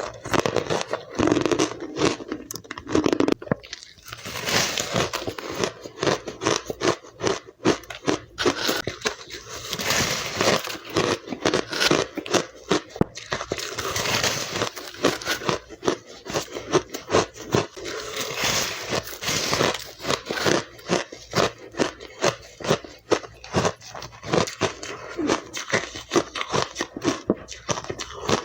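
Ice being bitten and crunched between the teeth close to the microphone: a dense, uneven run of sharp crunches and crackles, several a second, with short pauses.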